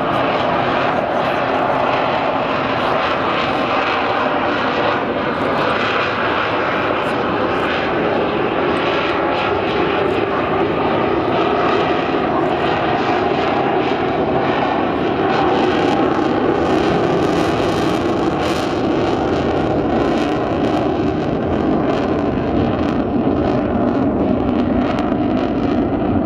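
Fighter jet's engines, a loud, steady jet noise as the aircraft flies a display pass, the sound slowly deepening over the last several seconds as it draws away.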